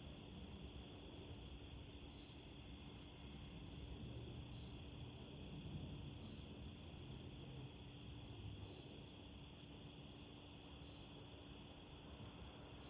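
Faint crickets at night: a steady high trill with a soft chirp repeating about once a second, over a low shifting rumble.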